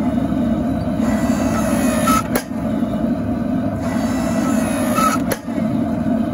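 Small electric hydraulic press, a converted log splitter, with its motor and pump running under load as it squeezes a hot forge-welded Damascus billet. A click and a brief dip in the drone come twice, about three seconds apart, as each squeeze is cycled.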